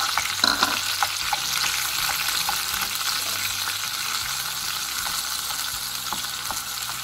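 Chopped garlic sizzling in hot oil in a frying pan beside browning pork cubes, stirred with a wooden spoon that scrapes and taps against the pan, the taps most frequent in the first second or so.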